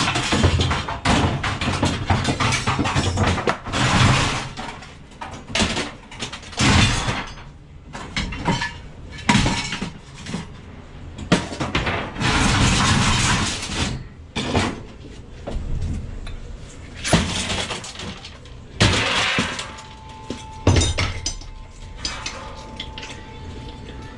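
A series of irregular crashes and clatters, a dozen or more, with one longer clatter lasting about two seconds around the middle and a faint steady tone near the end.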